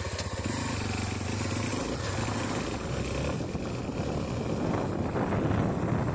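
Honda XR250 Tornado's single-cylinder four-stroke engine running as the bike rides along. Wind on the microphone grows louder over the last couple of seconds.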